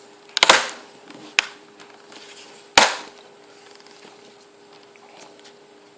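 Plastic laptop screen bezel clips snapping into place: three sharp clicks within the first three seconds, the last the loudest.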